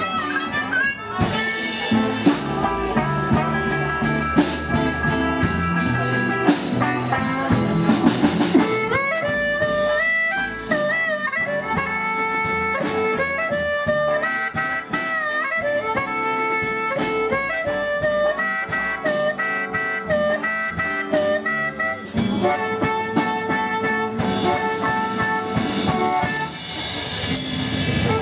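Live electric blues band: a harmonica played through a cupped bullet microphone leads over electric guitars, upright bass and drum kit. Busy drumming fills the first few seconds, then the harmonica holds long notes that bend up and down.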